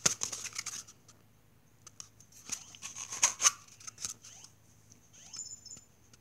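Fingers and hands rubbing and tapping on the camera right by its microphone: scattered scratches, scrapes and light clicks, the loudest about three and a half seconds in.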